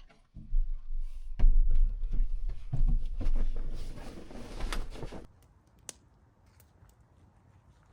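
Irregular knocks, clunks and rustling of things being handled, with a denser rustling stretch about four seconds in; it stops after about five seconds, leaving faint background and a single small click.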